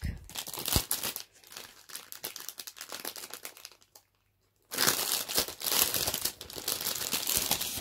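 Crinkling and rustling of wrapping as a book is unwrapped. It comes in two spells with a short pause about four seconds in, and the second spell is louder.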